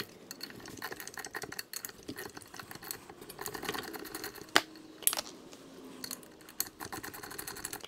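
Light metallic clicking and clinking from a 10 mm wrench working the water pump drive studs loose from a scooter flywheel. A couple of sharper clicks come about halfway through.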